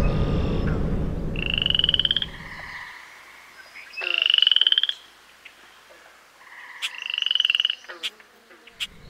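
Frogs calling: three trilled calls, each just under a second long and rising slightly in pitch, with a few sharp clicks near the end. A low traffic rumble carries on underneath until about three seconds in, then cuts off.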